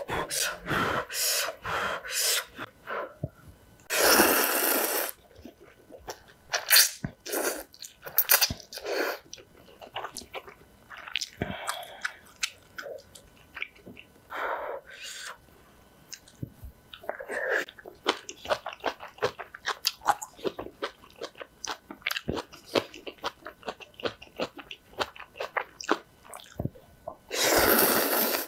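Close-miked eating sounds: instant ramen noodles slurped up in long, loud slurps about four seconds in and again near the end. Between the slurps come steady chewing and crisp crunching bites of kimchi.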